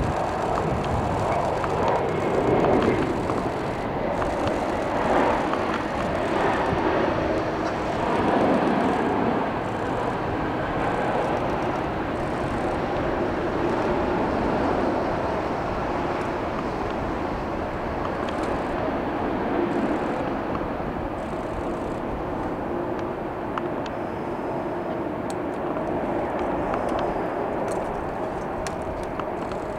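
Boeing 767 airliner's jet engines running steadily at low taxi power, a continuous rushing hum with a few swells in loudness in the first several seconds.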